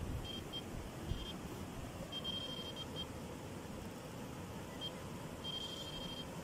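Electronic carp bite alarm bleeping: a few short single bleeps, then two longer held runs of tone, one about two seconds in and another near the end, over a faint steady background hiss.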